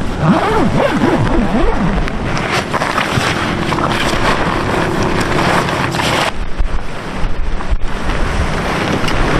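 Wind buffeting the microphone: a heavy low rumble with a rushing hiss that cuts off suddenly about six seconds in. Brief wavering pitched sounds come through in the first two seconds.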